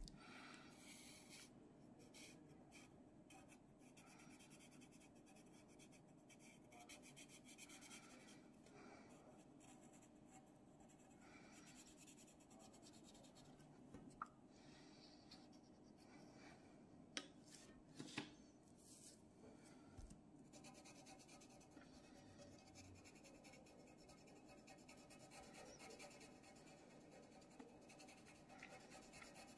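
Faint scratching of a pencil drawing and shading on paper, in short uneven strokes, with a few brief sharp clicks about halfway through.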